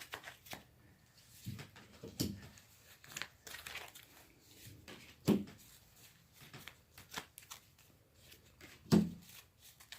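Tarot cards being handled and laid out on a table: scattered soft rustles and taps, with a sharper tap about five seconds in and another near the end.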